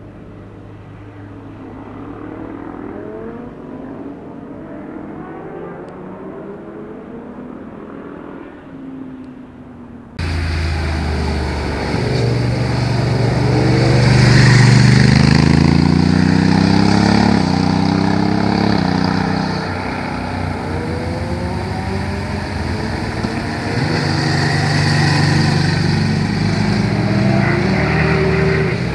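Motorcycle engines accelerating through hairpin bends, their pitch rising and dropping again with each gear change. For about the first ten seconds they are fainter and duller. Then the sound becomes suddenly much louder and closer, with repeated rising revs.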